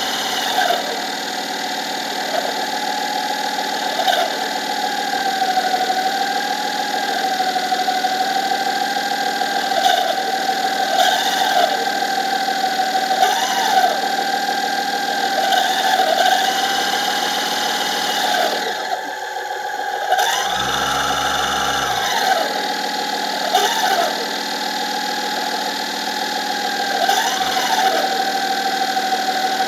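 Steady electric whine of the BA-1 autonomous underwater vehicle's thruster motors, wavering slightly in pitch, with short rising-and-falling sweeps every few seconds. About nineteen seconds in the whine briefly drops away, then a rising sweep and a low hum take over for about two seconds before the steady whine returns.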